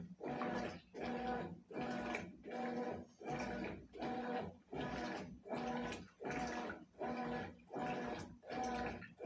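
Consul CWS 12 washing machine agitating its wash load. The motor hums and the water swishes in even strokes, a little under one stroke a second, with a short pause between strokes as the agitation reverses.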